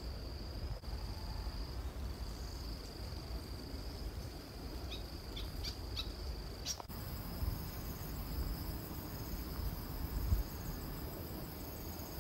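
Steady, high-pitched drone of insects, with a few short bird chirps and a sharp click about halfway through. A low rumble of wind and handling on the microphone lies underneath.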